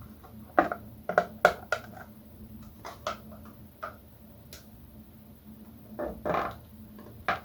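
Hard plastic clicks and knocks as a PVC figure's heels are pushed down onto the pegs of its display base. There are several sharp clicks in the first two seconds, a couple more around the middle, a short scrape, and one last click near the end.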